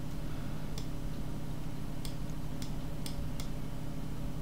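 Sharp clicks of a computer mouse and keyboard, about five spread over a few seconds, over a steady low hum.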